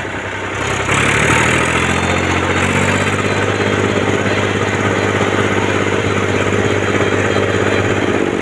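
Ursus 3512 tractor's three-cylinder diesel engine running under way on the road, heard from the driver's seat. About a second in the engine picks up and gets louder, then runs steadily.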